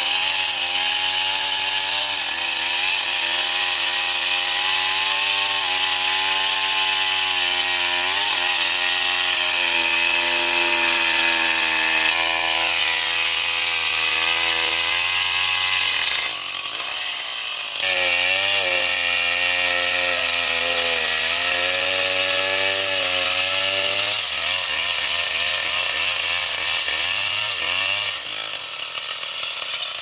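Stihl chainsaw running at full throttle while cutting through a felled tree trunk, the engine note sagging and recovering as the chain loads up in the wood. The sound drops and falls lower briefly about halfway through, and drops again near the end.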